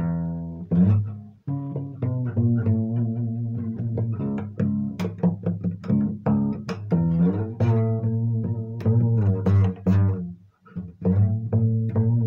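Acoustic guitar being played, a run of plucked and strummed chords with strong low notes. The playing breaks off briefly near the end, then resumes.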